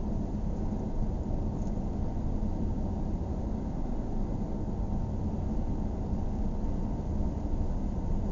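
Steady low road rumble of a car heard from inside the cabin while driving: engine and tyre noise at a constant cruising speed.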